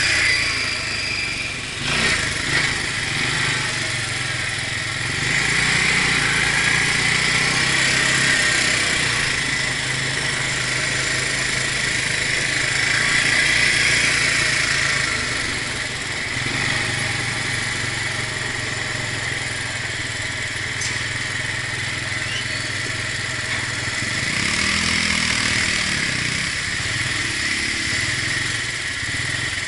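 Arctic Cat quad bike's engine running under way on a dirt track, its engine speed and loudness rising and easing off several times.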